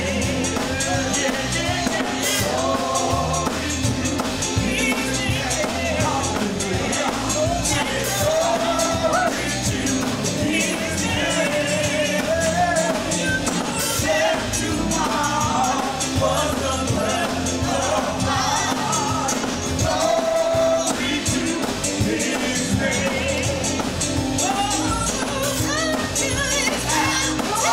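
Worship song: voices singing over a band accompaniment with a steady beat.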